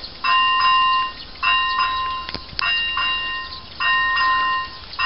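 AŽD 97 level crossing's electronic warning bell ringing in an even rhythm, a bright bell-like tone struck about once a second, sounding the warning for an approaching train before the barriers lower.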